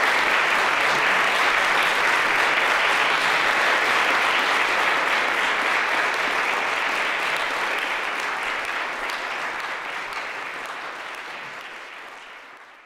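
Audience applauding steadily, the clapping dying away over the last several seconds.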